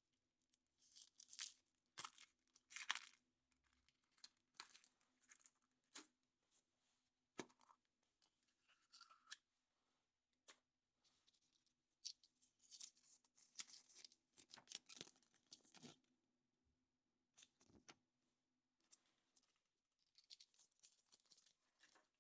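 Foil wrapping on a chocolate surprise egg being torn and crinkled by hand, in short irregular rustling bursts with a few sharp clicks between them.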